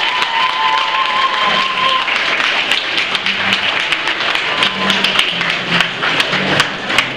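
A large crowd applauding, with a held high note trailing off about two seconds in.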